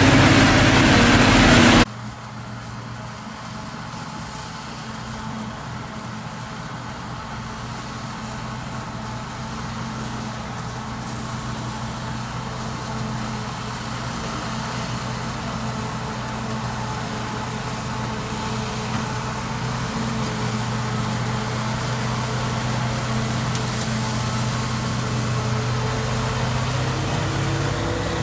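Farm machinery engine running. It is loud and rough for about the first two seconds, then drops abruptly to a steadier, quieter hum that slowly grows louder.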